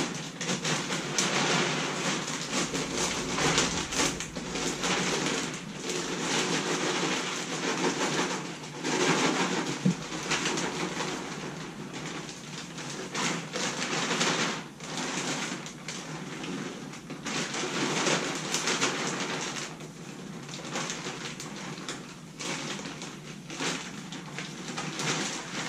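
Extruded-sawdust wood pellets pouring from a 40-pound bag into a 13-gallon trash can. They make a dense rattling hiss that swells and eases as the bag is tipped, with a few brief pauses.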